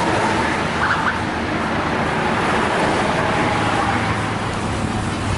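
Steady road traffic noise: engines and tyres of passing vehicles.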